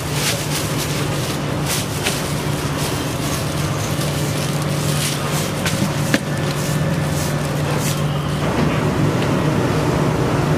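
Steady low mechanical hum, with scattered soft slaps and knocks from dough being worked by hand in a steel bowl.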